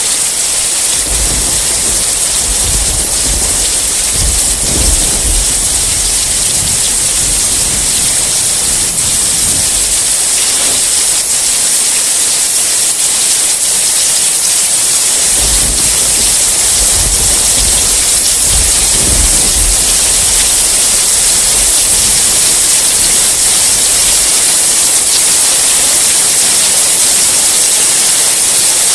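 Heavy rain falling with a steady hiss, with two long rolls of low thunder: one starting about a second in and lasting several seconds, and another starting around the middle.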